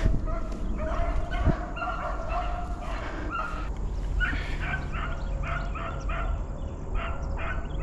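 A pack of beagles baying, a steady run of short, overlapping yelping calls, several a second. These are typical of hounds giving tongue on a rabbit's scent.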